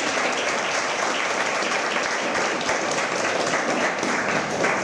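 A roomful of a few dozen seated people clapping steadily, the applause dying away at the very end.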